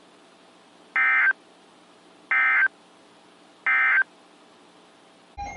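EAS end-of-message signal on NOAA Weather Radio: three short identical bursts of warbling SAME digital data tones, about 1.35 s apart, closing a severe thunderstorm warning. A different, louder sound cuts in just before the end.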